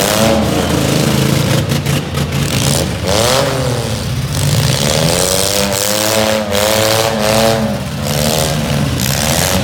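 Several demolition derby trucks' engines revving up and down hard over a steady low engine rumble, with several sharp bangs.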